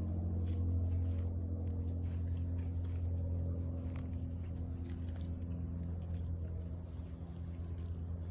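An engine running steadily with a low hum, with faint scattered ticks over it.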